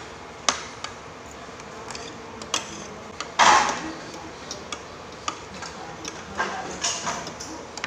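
Metal spoons and forks clicking and scraping against plates and bowls while eating, in scattered light clinks, with one louder, longer burst of noise about three and a half seconds in.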